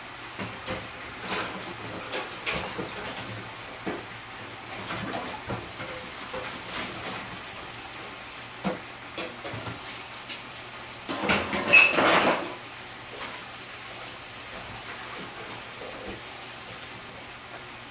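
Dishes and cutlery clinking and knocking at a kitchen counter, in short scattered clicks with one louder clatter about eleven seconds in, over a faint steady sizzle of meat and potatoes frying in pans on the stove.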